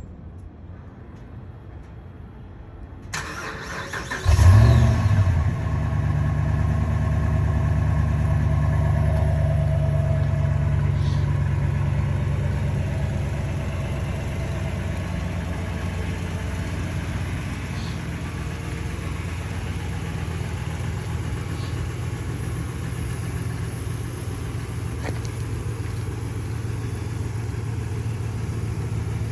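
A 4th-gen Ram 1500 pickup's engine starting: it cranks and catches with a brief rev about four seconds in, then runs at a steady idle that drops back a little after about twelve seconds, as a fast idle settles.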